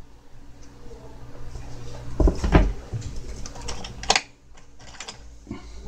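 Close handling noises as a short rootstock stick and a grafting knife are worked in the hands over newspaper: scattered clicks and rustles, with a heavy thump about two seconds in.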